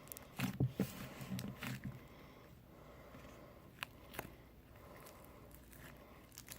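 Slime with lotion worked into it being squeezed by hand: a run of short, wet squishes and clicks over the first two seconds, then two single clicks near the middle.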